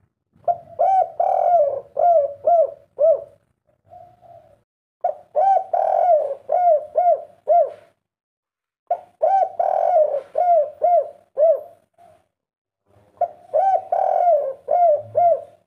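Spotted dove cooing in four repeated phrases a few seconds apart. Each phrase is a low drawn-out coo followed by a quick run of short arched coos, the 'kuk 3' song type that Indonesian dove keepers prize.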